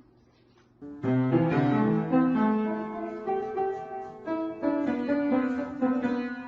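Background piano music that starts about a second in, after a brief quiet moment.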